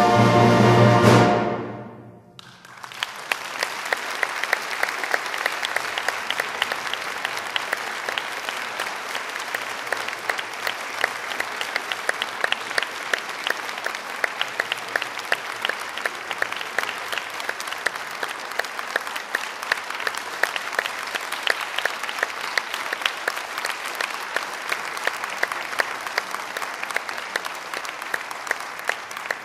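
A brass band holds its loud final chord, which cuts off about a second and a half in and rings away in the hall's reverberation. Then the audience breaks into steady applause.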